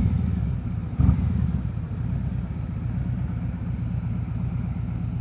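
Harley-Davidson Road King Special V-twin engine running under way with wind noise, heard from a mic inside the rider's helmet. The low engine rumble is steady, with two brief louder low surges, one at the start and one about a second in.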